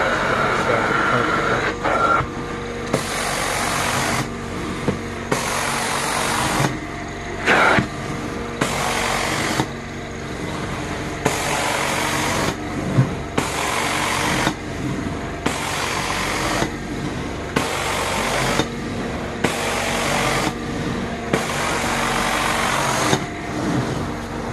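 Carpet cleaning machine running steadily, its noise swelling and falling back about every one and a half seconds as it is worked back and forth over the carpet.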